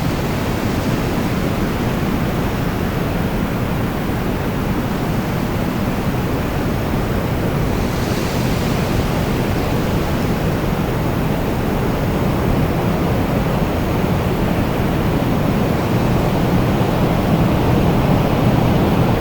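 Wind blowing steadily in a deep, low rush, with a brief gust of hiss about eight seconds in and a slight swell near the end.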